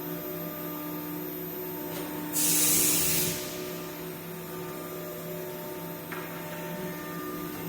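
Steady electric machine hum with several fixed tones. About two seconds in, a loud hiss lasts about a second, like a short blast of air.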